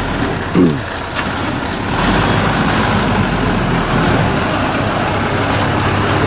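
Small engine of a homemade tracked rice-sack carrier running steadily as the machine crawls across the harvested paddy. About half a second in, a short loud falling sound cuts across it, and a sharp click follows shortly after.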